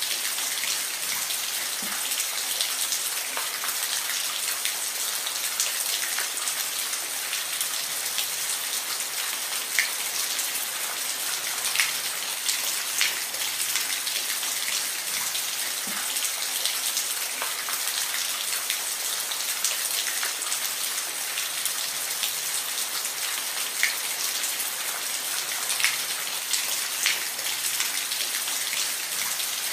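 Steady rain falling, an even hiss with individual drops ticking sharply against a surface here and there.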